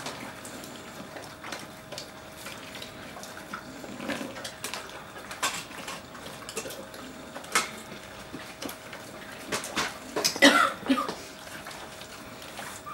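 Leonberger eating meat off a hand-held plastic plate: wet chewing and licking with scattered clicks and knocks of teeth and tongue against the plate, and a louder cluster of noise about ten seconds in.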